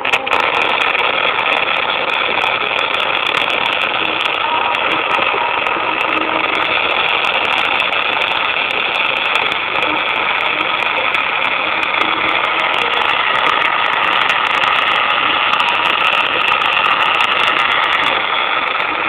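Electric arc welding: the arc strikes right at the start and runs as a steady crackling hiss, with frequent sharp spatter pops that come thicker in the last few seconds.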